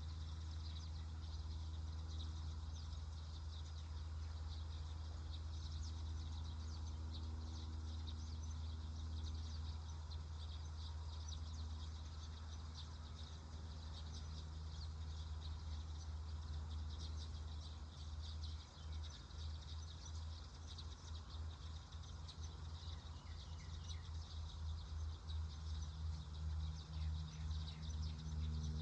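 Outdoor yard ambience: birds give many quick, high chirps throughout, with a few short sliding calls later on. Underneath runs a steady low rumble of wind on the microphone, which turns gusty in the last ten seconds or so.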